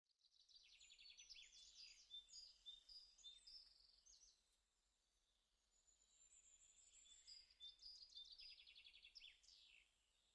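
Faint songbird singing: two long bouts of rapid high trills, chirps and whistles, the first through the first four seconds or so and the second starting about six seconds in.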